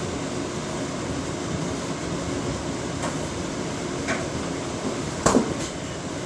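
A steady fan-like hum of room noise, with a few light clicks and one louder knock about five seconds in.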